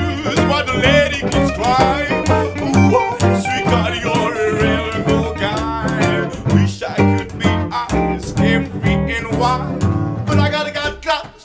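Live gypsy jazz band playing: a man singing over strummed acoustic guitars and a plucked upright double bass keeping a steady beat. The music breaks off briefly right at the end.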